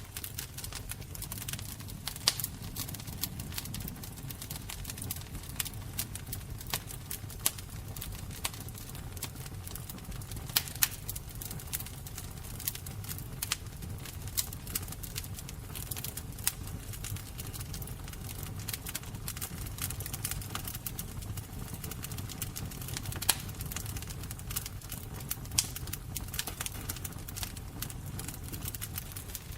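Fire crackling, with frequent irregular sharp pops and snaps over a low steady rumble.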